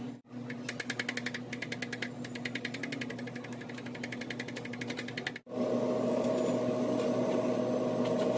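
Cobbler's hammer tapping rapidly and evenly on a rubber shoe sole set on an iron last stand, pressing the sole that has just been glued with neoprene cement. About five and a half seconds in, this cuts to a sole-buffing wheel machine running steadily with a strong even hum.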